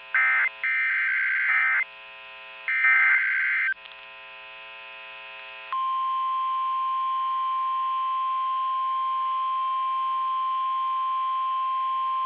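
Emergency Alert System SAME data bursts, a short screech at the start and then two of about a second each, followed by the NOAA Weather Radio 1050 Hz attention tone. The tone comes on about six seconds in and holds steady. This is the header and alert tone that open a new warning broadcast.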